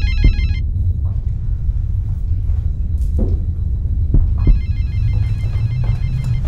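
An electronic phone ringtone chirps in a fast repeating pattern; it cuts off about half a second in and starts again near the end. Under it runs a steady deep rumbling drone, with a few soft knocks in between.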